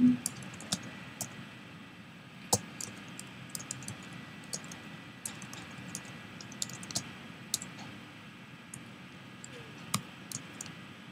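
Computer keyboard being typed on: irregular key clicks coming in short runs with pauses between them, a few keystrokes louder than the rest.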